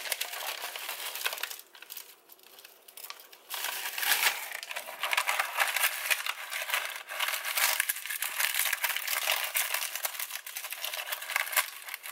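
Dry nori sheets crinkling and crackling as hands press them into a metal springform pan. The crackling eases off briefly about two seconds in, then picks up again and goes on steadily.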